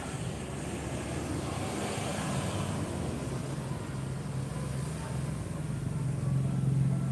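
Bus engine running with a steady low hum, growing louder toward the end.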